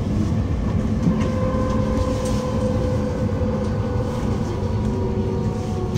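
Electric train running along the rails while braking, with a steady rumble. Its traction motors whine in a few steady tones that slowly fall in pitch as it slows.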